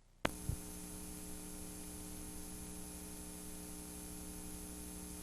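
A sharp click and a low thump, then a steady electrical hum with hiss, typical of mains hum on an audio line.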